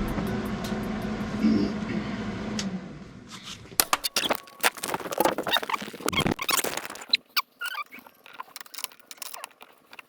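A steady humming drone that fades out about three seconds in, then a run of sharp irregular clicks, taps and scrapes of small metal parts and a tool being handled.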